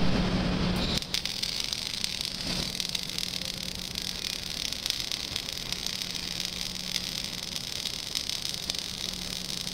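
MIG (gas metal arc) welding arc burning: a steady crackling hiss that starts about a second in, over a steady low hum.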